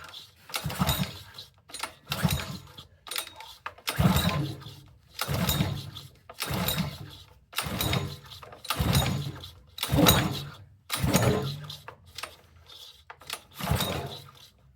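Honda GC190 small engine being pull-started over and over, about ten recoil-starter pulls roughly a second apart, each a brief cranking rasp. It turns over without catching, starved of fuel through a freshly fitted fuel line that has not yet primed.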